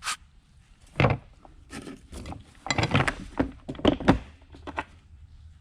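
Metal tools clattering and knocking irregularly as someone rummages through a toolbox for a 10 mm socket.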